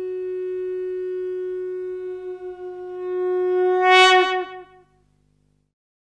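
A single long note on a horn-like wind instrument. It holds steady at one pitch, swells louder about four seconds in, then dips in pitch and dies away.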